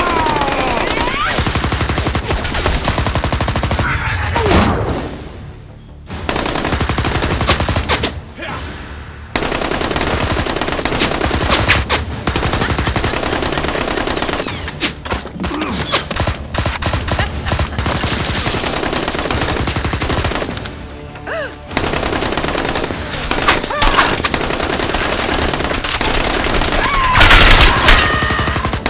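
Rapid automatic-gunfire sound effects laid over blaster firing, in long bursts broken by a few short pauses, with the loudest burst near the end.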